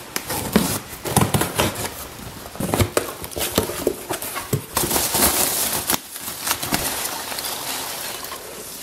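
A cardboard shipping box being handled and opened, its flaps scraping and knocking, then a hand rummaging through foam packing peanuts, which rustle and crackle loudest about five seconds in and then die down.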